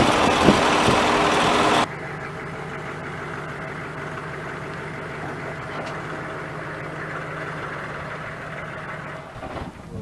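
A loud engine runs for about the first two seconds, then cuts sharply to a quieter, steady engine idle, plausibly the pickup truck idling while the sawmill is hitched to it.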